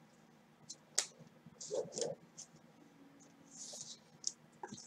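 Faint handling sounds of trading cards on a table: scattered light clicks and short scrapes, with one sharper click about a second in and a few small clicks near the end.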